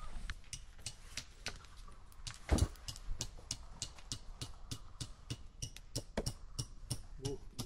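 Wood campfire crackling, with irregular sharp pops several times a second and one louder pop about two and a half seconds in.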